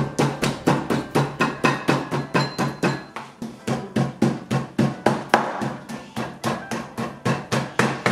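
Cleaver chopping and hammering lamb meat on a plastic cutting board to mince it by hand, a fast, even run of blows at about four a second.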